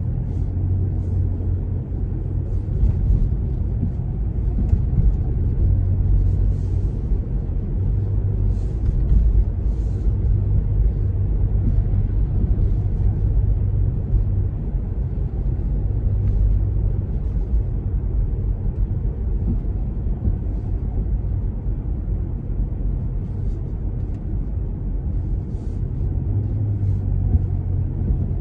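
Steady low rumble of a car's engine and tyres on the road, heard from inside the cabin while driving through town.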